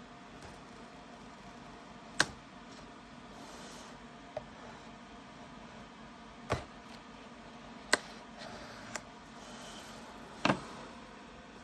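Keyboard packaging and parts being handled: about six sharp, irregular knocks and clicks as things are picked up and set down, with faint rustling between them.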